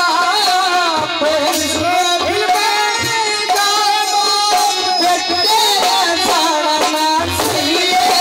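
Haryanvi ragni folk music played live: a dholak drum beating in short groups of strokes under a held, wavering melody line that slides between notes.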